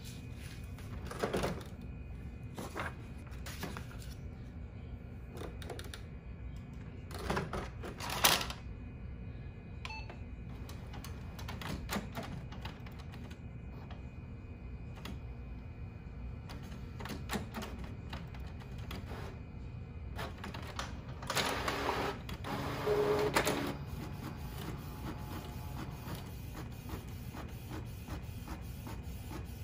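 Canon Pixma MX922 inkjet all-in-one making a copy: scattered clicks and knocks, a louder mechanical whirring stretch about two-thirds of the way through, then fast, even ticking as the copy starts to feed out, over a steady low hum.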